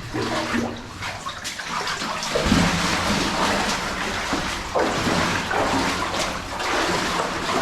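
Water splashing and sloshing, uneven in loudness, as boots wade through shallow water on the floor of a flooded mine drainage adit.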